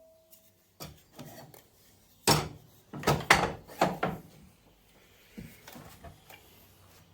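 Timber offcut being worked by hand: four or five short, loud rasping strokes on wood a couple of seconds in, then fainter scrapes and knocks.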